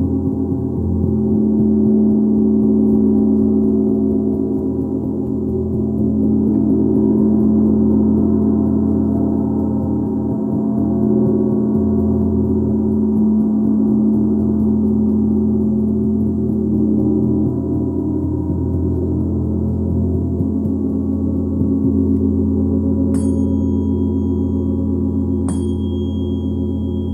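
A gong droning in a sustained, shimmering wash of overlapping low tones, swelling and easing in slow waves. In the last few seconds, a small high-pitched metal instrument is struck twice and rings on with a clear steady tone over the gong.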